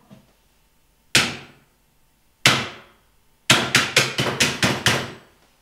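Hammer blows onto a CPU seated in a computer motherboard: two single strikes over a second apart, then a quick flurry of about ten strikes, each with a short ringing decay.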